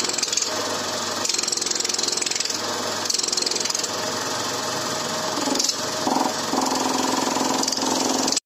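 Small electric air compressor with a single finned pump cylinder, running steadily: a constant motor hum under a rapid mechanical rattle from the pump.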